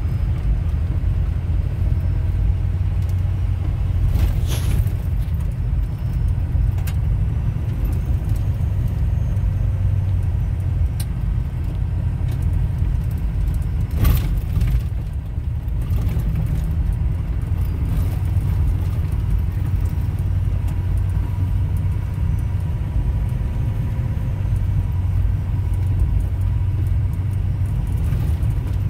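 Steady low rumble of a vehicle driving on a gravel road, heard from inside the cab: engine and tyre noise, with a few sharp knocks, the loudest about fourteen seconds in.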